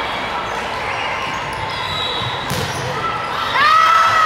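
Volleyball rally on a hardwood gym court, echoing in the hall: a sharp ball strike about two and a half seconds in, over a murmur of voices. Near the end comes a louder, drawn-out high squeal.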